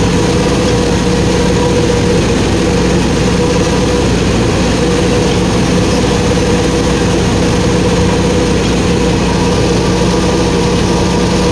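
Massey Ferguson four-wheel-drive tractor's diesel engine running steadily at a constant note.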